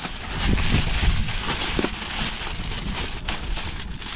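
Wrapping crinkling and rustling as it is folded in layers around food for grilling, over wind rumbling on the microphone.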